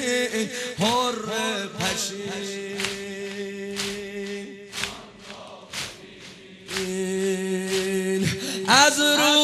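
A male voice chanting a Persian Muharram nohe (mourning lament) without instruments, holding long drawn-out notes. Sharp beats sound about once a second in time with the chant, and the singing drops off for a moment in the middle.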